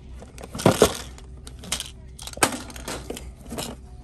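Plastic toy capsules and cardboard toy boxes being handled and knocked together in a shopping cart: several short crinkling, clattering bursts, the loudest a little under a second in.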